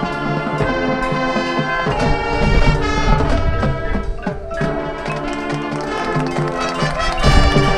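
High school marching band playing: brass section holding chords over drums and percussion, with a swell in loudness near the end.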